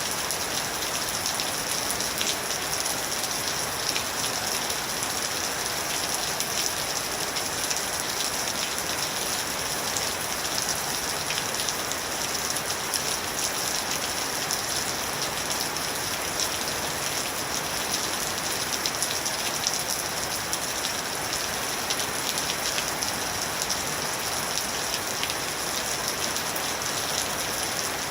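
Steady rain falling: a dense, even hiss with scattered individual drop ticks.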